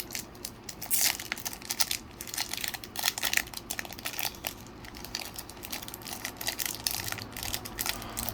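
Foil wrapper of a Pokémon trading card booster pack crinkling and tearing as it is opened by hand, in irregular crackles with louder bursts about one and three seconds in.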